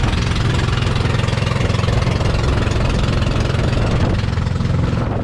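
Engine of a motorized outrigger fishing boat (bangka) running steadily under way, a low drone mixed with the rush of water from the wake.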